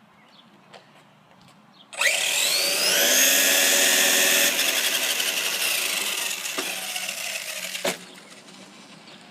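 Electric brushless motor of a 1/8-scale Redcat Earthquake 8E RC monster truck spooling up at full throttle with a sudden, loud, rising whine, then winding down over a few seconds, with a sharp knock near the end.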